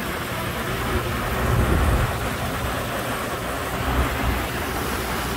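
Heavy rain falling steadily, with low rumbling swells about one and a half seconds in and again around four seconds.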